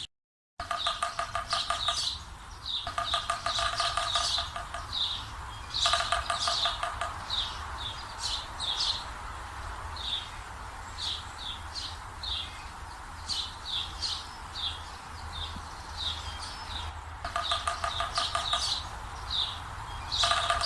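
Songbirds calling: many short, high chirps, with a buzzy trill about a second and a half long repeated several times, over a steady low rumble.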